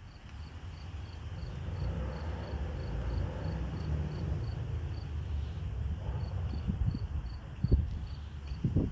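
Crickets chirping in an even rhythm, about two to three chirps a second, over a low rumble. A couple of dull knocks come near the end.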